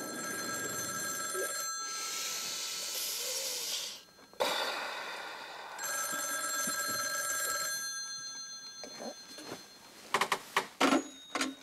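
Black rotary desk telephone's bell ringing with an incoming call, in long rings with a short break about four seconds in. A few sharp knocks and clatters come near the end.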